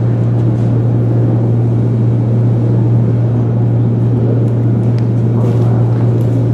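A steady low hum, with faint rustling over it as an evergreen garland is handled.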